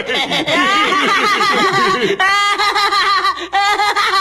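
Cartoon voice acting: a man laughing in a fast run of "ha-ha-ha" for about two seconds. Then a higher, squeakier cartoon voice laughs the rest of the way.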